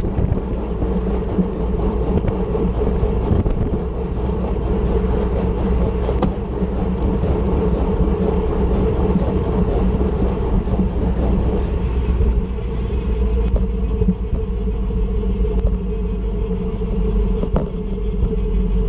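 Wind rushing over the microphone of a handlebar-mounted action camera on a road bike sprinting at about 35 mph, with tyre and road rumble. About three-quarters of the way through, a faint high buzz comes in as the rider stops pedalling and coasts: the freewheel hub ticking.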